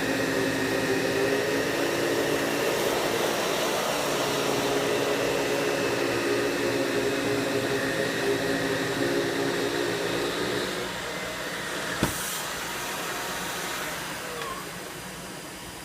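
Vacuum cleaner motor running steadily with a droning hum during a single cleaning pass over a rug. About eleven seconds in the hum fades and drops in level, a sharp click follows a second later, and the sound falls quieter still near the end.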